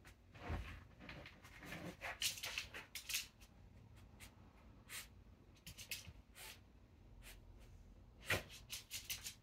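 Maltese dog sniffing hard in short, irregular bursts as it hunts for its ball, with one louder burst near the end.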